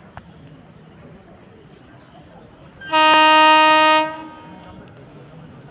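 Approaching express train's locomotive horn sounding one steady blast of about a second, about halfway through.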